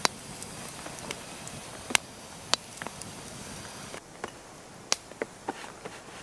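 Scattered, irregular sharp ticks and taps of wet snow and rain drops landing on branches and the forest floor, over a faint steady hiss. The hiss drops a little about four seconds in.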